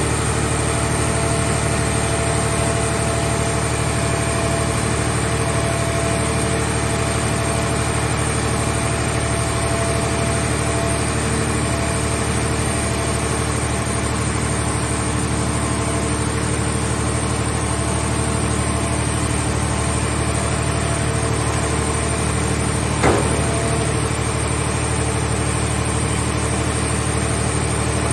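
Hydraulic car baler's power unit running steadily, a constant machine drone with a steady whine in it. One short sharp knock sounds once, late on.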